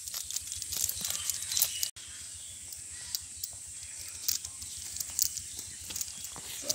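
Close rustling and crackling of leaves, twigs and a cast net being handled, with many quick irregular clicks over a steady high hiss. The sound cuts out for an instant about two seconds in.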